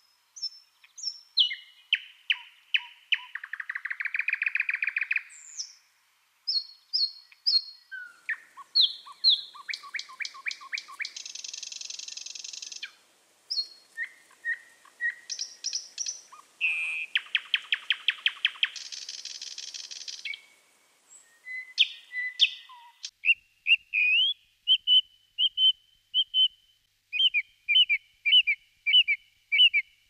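Thrush nightingale singing: a varied song of clear whistles, rapid clicking rattles and buzzy trills, phrase after phrase with short pauses between. About three-quarters of the way through it gives way to a song thrush singing short phrases, each repeated several times.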